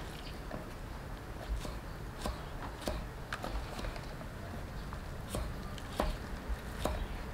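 Kitchen knife slicing jackfruit bulbs on a round wooden chopping board: irregular sharp knocks of the blade striking the wood, one about every half second to second, with a pause of over a second midway.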